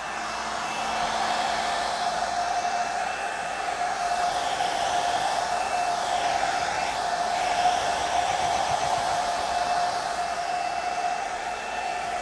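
Handheld hair dryer running steadily, a rush of blown air with a steady whine from its motor, drying freshly applied stencil paint.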